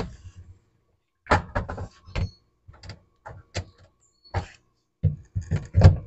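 Plastic lower compartment of a refrigerator's extra-cold section being worked loose and pulled out: a string of irregular plastic knocks and clicks against the fridge's inner liner, the loudest near the end.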